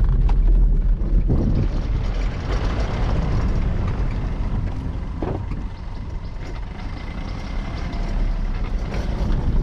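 Car driving on a rough dirt track, heard from inside the cabin: a steady engine and tyre rumble, with a couple of knocks from bumps, one about a second in and another near the middle.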